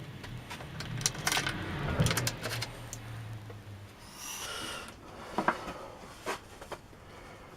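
Parts being handled on a workbench: a few light knocks and clicks, and a brief high-pitched squeak about four seconds in, over a low hum that stops at about the same point.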